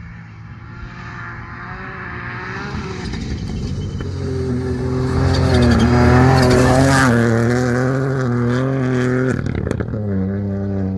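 Rally car engine at full throttle, growing louder as it approaches and loudest about six seconds in. The engine note rises and falls through gear changes, with a brief cut in the note near the end.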